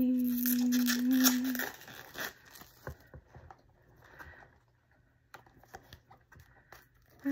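Packaging crinkling and rustling as a makeup palette is unwrapped and handled, with a steady hummed note over the first second and a half. After that come scattered light clicks and rustles from handling the palette.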